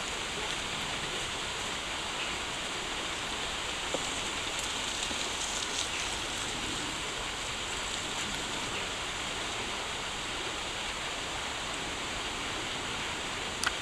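Steady rush of a shallow stream flowing, with a faint tick about four seconds in and a sharp click near the end.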